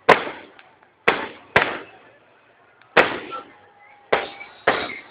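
Aerial fireworks bursting: six sharp bangs at uneven intervals, each trailing off in a short echoing tail.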